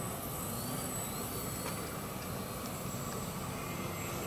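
Small electric indoor RC airplane flying, its motor and propeller giving a steady hum over the even rush of the gym's ventilation fans.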